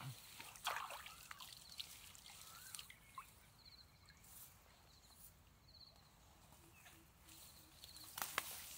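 Faint drips and small splashes of water, mostly in the first few seconds, over quiet outdoor ambience with a faint repeating high chirp.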